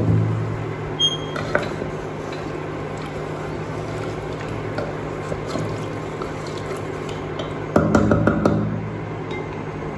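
A spatula stirring a watery curry in a metal pot: light scrapes and knocks against the pot, busiest and loudest about eight seconds in, over a steady low hum.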